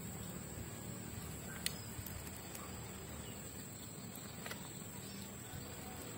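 A few sharp clicks as cooking sticks turn mud crabs in a metal pan over a wood fire, the loudest about two seconds in. Behind them runs a steady high-pitched insect drone.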